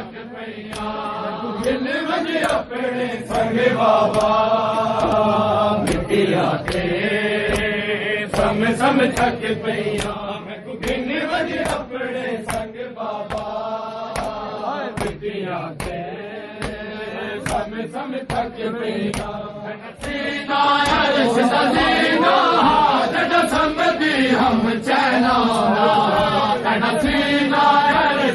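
A crowd of men chanting a noha together over a steady rhythm of hands slapping bare chests (matam). The chanting grows louder about two-thirds of the way through.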